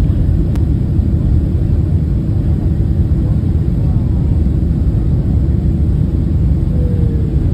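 Steady, loud low rumble of a Boeing 767-300 airliner's engines and airflow, heard from inside the passenger cabin during landing.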